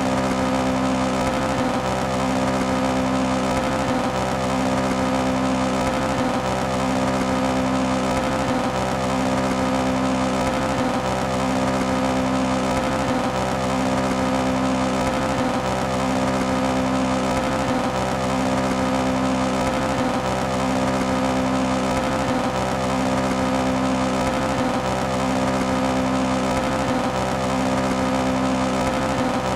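Toyota AE86 engine held at high rpm and misfiring. The steady note stutters briefly about every second and a half, in an even, looping rhythm.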